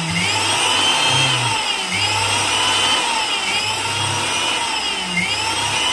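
Mixer grinder's electric motor running with no load on a test hookup to its speed-selection wires, a whine that rises and falls in pitch about every one and a half seconds over a low hum.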